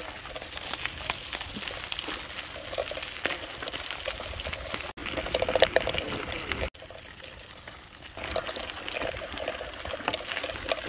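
Bicycle tyres crunching over a gravel trail, a steady dense crackle of small stones. It breaks off for a moment twice, about five and about seven seconds in.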